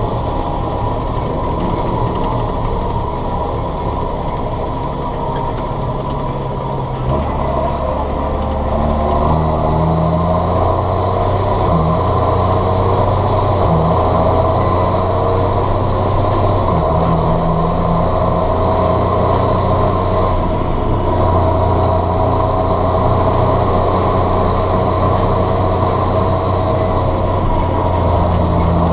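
John Deere 7710 tractor's six-cylinder diesel engine running steadily, its note getting louder and deeper about seven seconds in.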